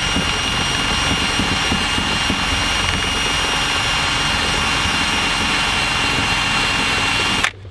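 Cordless drill running steadily at speed with a yellow wheel pressed against a car's painted bumper, wearing down raised material so a number plate can sit flush. The motor holds a constant high whine and stops abruptly near the end.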